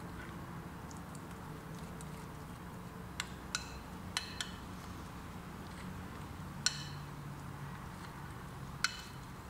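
A metal spoon stirring thick batter in a glass bowl, striking the glass with about six sharp, ringing clinks from about three seconds in, over a low steady hum.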